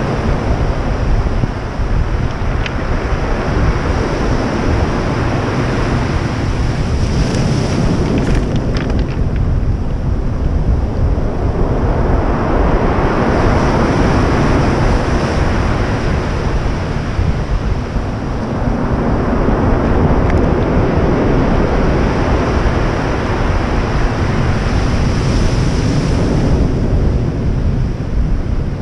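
Heavy ocean surf breaking and washing ashore, swelling and fading in long surges every several seconds, with wind rumbling on the microphone.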